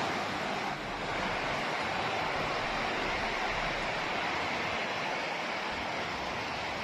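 Strong wind of an approaching storm blowing steadily on a phone microphone, an even rushing noise.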